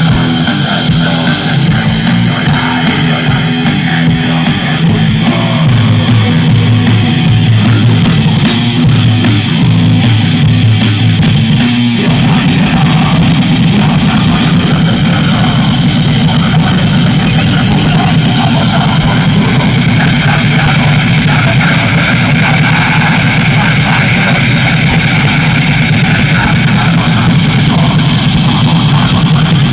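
Heavy metal band playing loudly: distorted electric guitars over bass and drum kit. About twelve seconds in, the riff changes into a faster, denser section.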